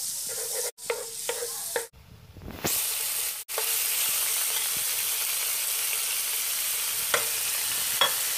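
Butter sizzling in a nonstick frying pan while a wooden spatula stirs and scrapes through it, then, after a brief quieter break, shrimp frying in the pan with a steady sizzle and a few light taps of a metal utensil.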